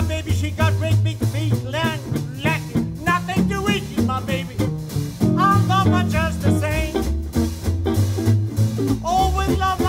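Small swing/jump-blues band playing an instrumental passage: drum kit and a stepping bass line under a lead melody line with bending notes.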